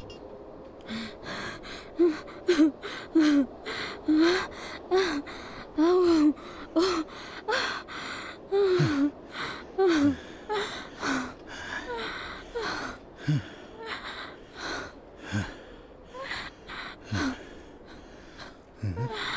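A woman gasping for breath in quick, ragged pants, many of the breaths voiced as short whimpering cries, about one or two a second. The breaths are strongest in the first half and grow fainter and more spread out toward the end.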